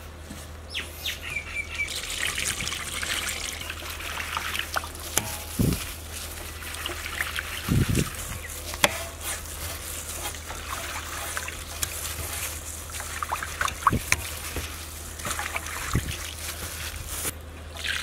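Water splashing and trickling as raw tuna pieces are washed by hand in a metal tray, the water spilling over the rim. Occasional sharp knocks and clinks.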